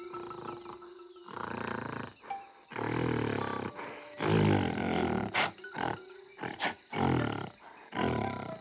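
Silverback gorilla sound effect: a series of deep roars and grunts, each burst about a second or shorter, as an angry threat display in a standoff.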